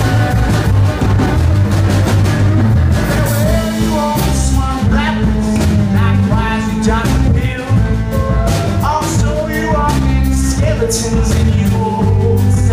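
Live folk-country band playing: fiddle, electric guitar, acoustic guitar, upright bass and drum kit, with a male lead vocal coming in about three seconds in.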